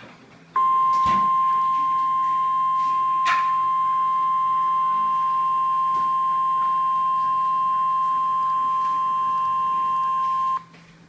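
NOAA Weather Radio's 1050 Hz warning alarm tone: one steady, loud, single-pitched beep held for about ten seconds, then cut off sharply, the attention signal that comes before a warning is read. Two brief clicks cut through it about one and three seconds in.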